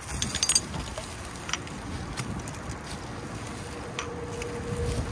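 Plastic trash bags rustling as they are rummaged through, with a quick run of clinks near the start and a couple of single clinks later: glass candle jars knocking together.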